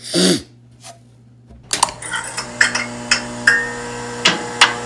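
A short falling swoosh, then from about two seconds in a string of bright chime-like strikes, irregularly spaced, ringing over a held synth chord: an intro sound effect leading into the song.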